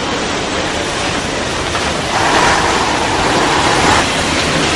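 KAMAZ rally truck's diesel engine running as the truck drives past close by. The sound swells as it comes nearest, about two seconds in, and eases again near the end.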